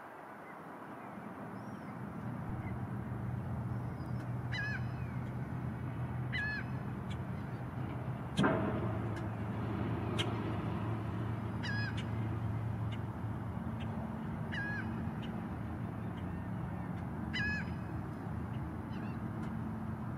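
An osprey at its nest gives short whistled chirps, each sliding downward, about five of them a few seconds apart. Under them runs a steady low motor hum, and there is one sharp knock about eight seconds in.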